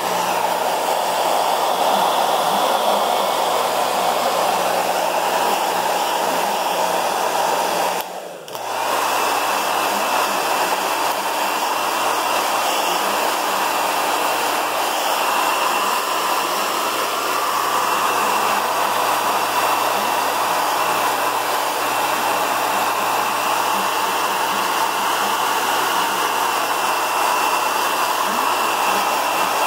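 Electric hair dryer blowing steadily with a constant rushing hum, briefly dropping away about eight seconds in.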